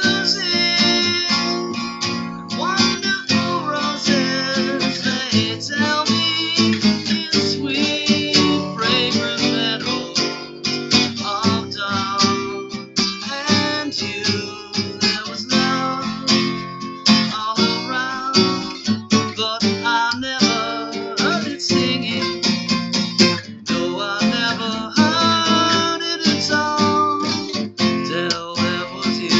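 Solo steel-string acoustic guitar playing a slow ballad, strummed chords with picked melody notes, in an instrumental passage with no singing.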